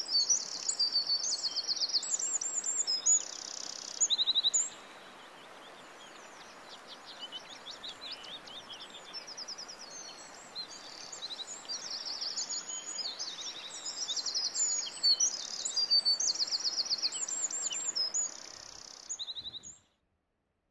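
Several small songbirds singing: rapid high chirps and trills over a faint steady hiss. The song is dense and loud for the first four or five seconds, thins out, builds again towards the middle, then cuts off abruptly near the end.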